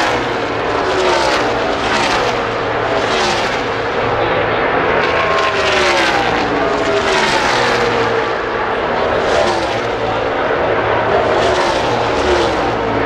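A pack of NASCAR Cup Series stock cars' V8 engines at full throttle passing one after another. Each car's pitch falls as it goes by, in a continuous string of surges about a second apart.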